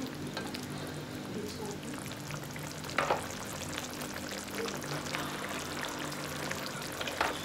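Shrimp sizzling and crackling in a pan of thick sauce while it is stirred, with two brief louder scrapes of the utensil against the pan, about three seconds in and near the end.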